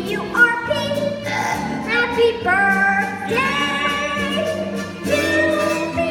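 Children's cast singing a musical number together over instrumental accompaniment, with held notes and pitch glides.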